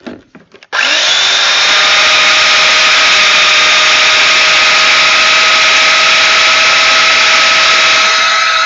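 Festool Domino joiner switched on less than a second in after a few handling clicks; its motor spins up and then runs steadily with a high whine. It is now on a heavy-duty lead, after a lightweight sander cable could not carry its current, and it keeps running without cutting out.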